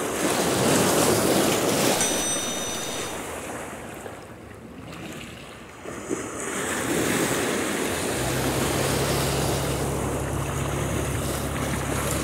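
Small waves washing over shore rocks, with wind on the microphone. A steady low hum joins about eight seconds in.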